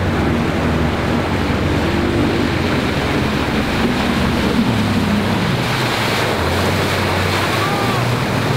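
Outboard boat motors running at speed, with water rushing past the hull and wind buffeting the microphone. The low engine note falls about five seconds in.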